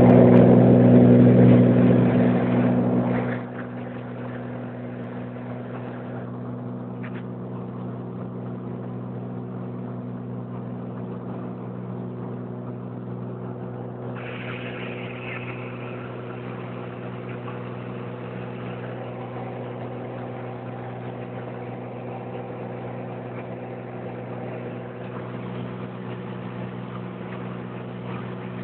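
Light aircraft's engine and propeller running steadily, heard from inside the cabin as an even, droning hum. It is much louder for the first three seconds or so, then drops and holds level.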